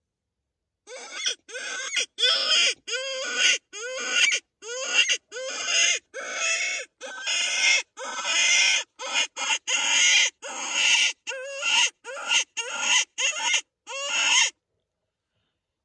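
Predator-hunting distress call: a prey-animal distress cry, repeated about twenty times in quick succession, each cry rising then falling in pitch, sounded to lure wolves in. It starts about a second in and stops about a second before the end.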